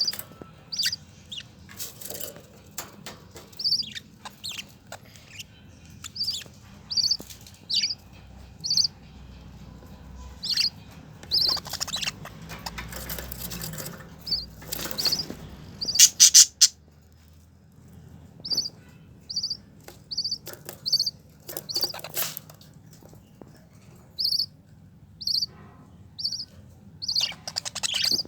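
A bird chirping: short high chirps repeated every half second to a second, with scattered bursts of noise, the loudest cluster about halfway through.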